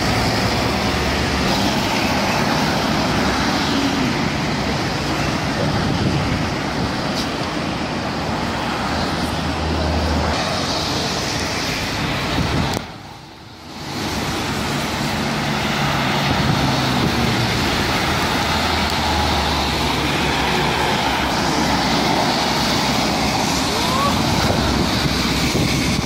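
Road traffic passing on a rain-wet road: car engines and tyre hiss swelling and fading as vehicles go by. The sound drops away briefly a little before halfway through.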